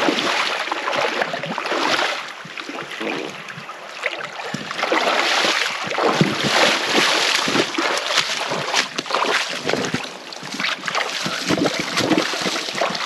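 River water splashing and sloshing around an angler's legs as he wades through knee-deep water, in uneven surges.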